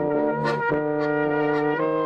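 Small folk brass band (trumpet, baritone horn, tuba and Styrian button accordion) playing a hymn-like song in held chords that change every half second or so.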